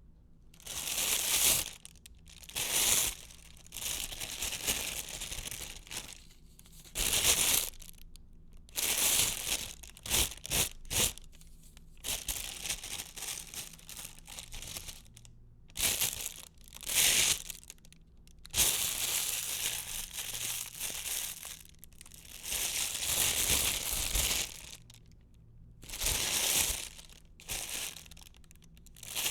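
Plastic envelope being handled: repeated crinkling and rustling bursts of a second or two each, with short pauses between, and a quick run of crackles about ten seconds in.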